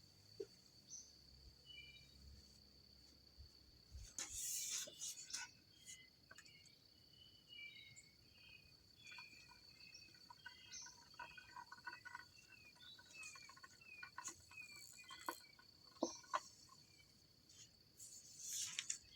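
Outdoor ambience: a steady high insect trill with birds chirping over it. Two brief scratchy swishes stand out, about four seconds in and near the end, with a few sharp clicks in between.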